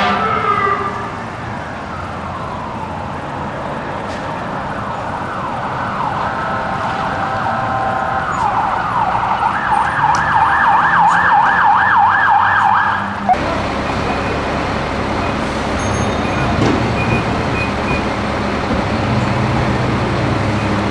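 Emergency vehicle siren, first rising and falling slowly, then switching to a fast yelp, cut off abruptly about 13 seconds in. After that comes a steady low rumble.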